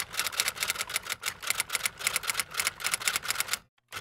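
Typewriter sound effect: rapid, even key clicks, about eight to ten a second, breaking off for a moment near the end.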